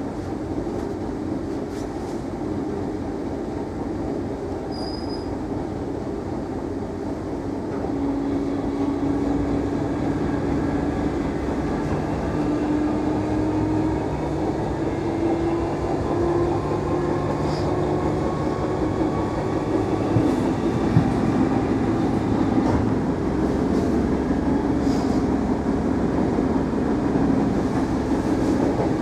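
Class 313 electric multiple unit heard from inside the carriage while running along the line: a steady rumble of wheels on track, and a short high squeak about five seconds in. From about eight seconds in, a traction-motor whine rises slowly in pitch and the sound grows a little louder as the train picks up speed.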